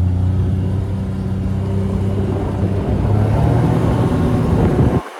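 Vehicle engine running with a steady low hum, its pitch shifting about three seconds in; the sound stops abruptly near the end.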